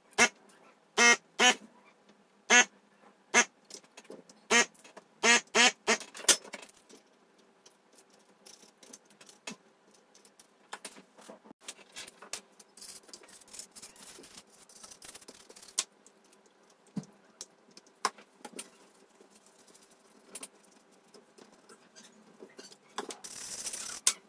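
Electric desoldering gun's vacuum pump buzzing in about ten short bursts over the first six seconds, each burst sucking molten solder off a through-hole joint on the instrument-cluster circuit board. After that there are only light clicks and handling, with a short hiss near the end.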